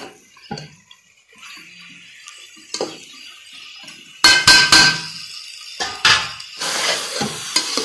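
Metal spoon stirring spiced bitter gourd pieces in an aluminium pressure cooker pot, clinking and scraping against the pot's sides. It is fairly quiet for the first few seconds, then comes a cluster of sharp clinks about four seconds in and more around six seconds.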